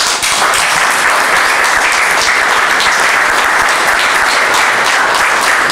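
Audience applauding: many hands clapping in a loud, steady, dense patter.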